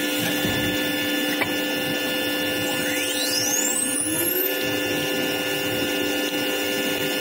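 CNC router running with a steady multi-tone whine over machine noise; about three seconds in, a spindle motor spins up, its whine rising steeply in pitch and settling at running speed about a second and a half later.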